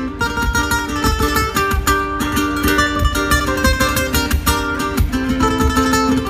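Two ukuleles playing an instrumental duet, a quick plucked melody over rhythmic strumming.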